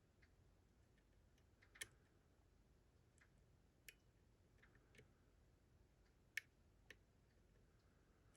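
Faint, sparse metallic clicks of a flag lock pick probing and lifting the pin stack of a six-pin Lockman pin-tumbler lock during single-pin picking, about six clicks at irregular intervals.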